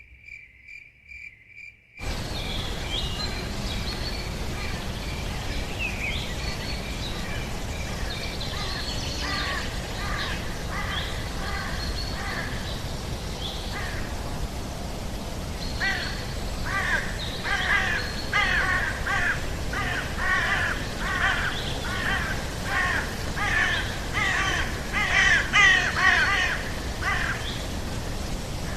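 Jungle soundscape: a cricket chirping steadily, then a steady hiss with scattered bird calls that build from about halfway into a dense run of rapid, repeated squawks.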